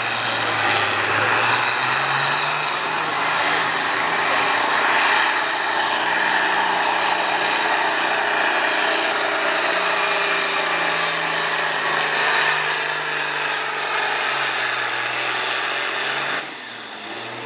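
International Harvester farm-stock diesel tractor pulling a weight-transfer sled at full throttle. The engine runs loud and hard, its pitch climbing over the first two seconds and then holding steady. It cuts back sharply about a second before the end.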